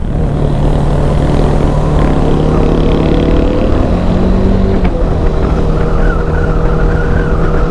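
Bajaj Dominar 400's single-cylinder engine running steadily while riding, with wind noise. The engine note steps up for about a second around four seconds in, then settles back.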